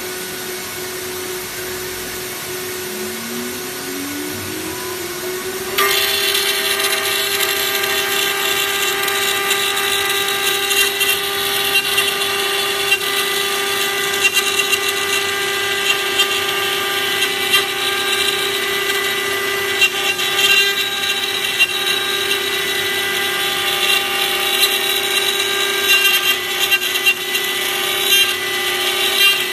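Router spindle of an AOKE CNC flatbed cutter milling an acrylic sheet. A steady high whine is joined by a second tone rising in pitch. About six seconds in, a sudden, louder cutting noise sets in as the bit works into the acrylic, and it continues steadily.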